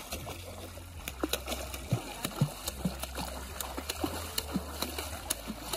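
A child's feet kicking and splashing in shallow lake water: irregular slaps and splashes, several a second.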